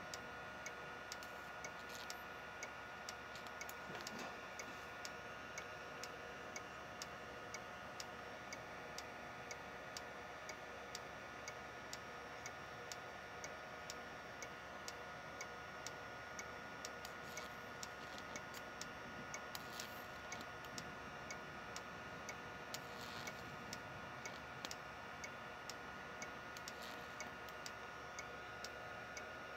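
Faint, regular ticking, about once a second, over a steady thin high whine.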